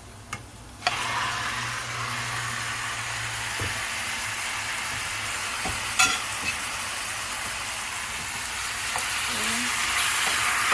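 Raw chicken wings going into hot oil with onions and spices, a loud frying sizzle starting suddenly about a second in and carrying on steadily, with a sharp utensil knock against the pan about halfway through.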